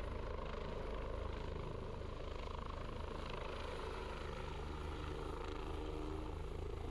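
Helicopter climbing away after lifting off, heard from the ground: steady rotor noise.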